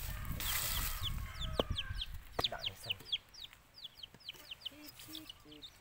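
Chicks peeping over and over, short high calls that fall in pitch, with a hen clucking low and fast near the end. Rustling in the first second and a few light knocks.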